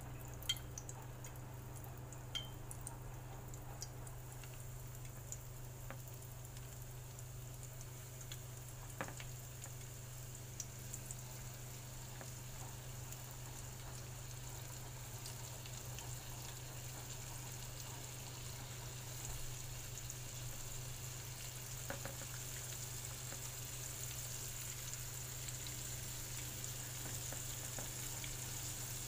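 Flour-coated chicken pieces shallow-frying in hot oil in a frying pan: a steady sizzle that slowly grows and brightens as more pieces go in. A few light taps come in the first ten seconds or so.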